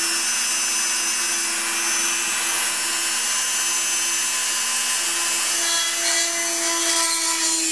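Small rotary tool in a drill press stand running steadily at slow speed, a constant motor whine with hiss, as its bit drills into a hardened polymer clay bead.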